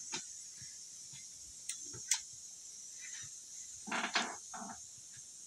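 Light clicks and knocks of a hand working a Dome DC 3038 double cassette deck's front panel as its power is switched off, over a steady faint hiss. There is a sharp click about two seconds in and a short cluster of knocks about four seconds in.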